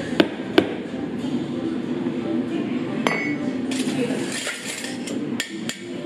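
Behind a cafe counter: sharp knocks and ringing clinks of metal and dishes, with a short hiss between about four and five seconds in, over a steady background murmur.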